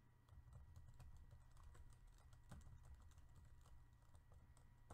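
Faint computer keyboard typing: irregular light key clicks over a low steady hum.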